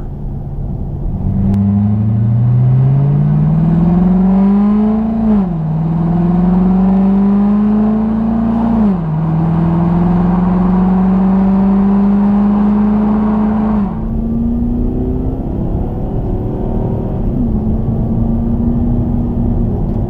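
Supercharged 6.2 L LSA V8 of a 2015 Cadillac CTS-V Coupe accelerating up through the gears. The engine note climbs and falls back at upshifts about five and nine seconds in, climbs more slowly, drops once more about fourteen seconds in, then holds nearly steady.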